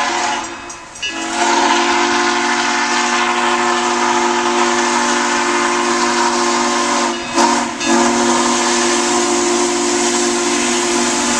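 Steam whistle of the QJ-class 2-10-2 steam locomotive #6988 blowing long blasts as it approaches: a steady chord of several notes. It breaks off briefly about a second in and again after about seven seconds, over a steady hiss of steam.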